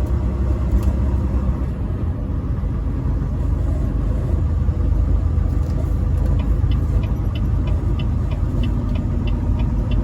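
Semi truck driving at highway speed: a steady low engine and road rumble. From about halfway through, a light ticking comes in about twice a second.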